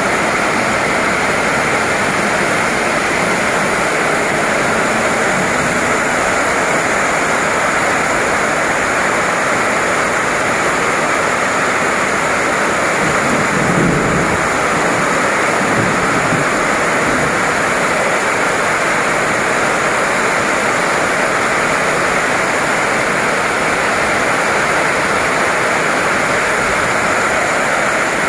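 Heavy rain pouring down, a steady loud hiss, with a brief low rumble about halfway through.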